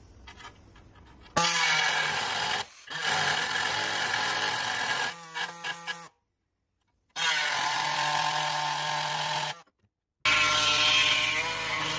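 Air-powered reciprocating saw cutting through a steel brake dust shield, running in several bursts of a few seconds each with a steady buzzing pitch. It breaks off suddenly into silence between bursts.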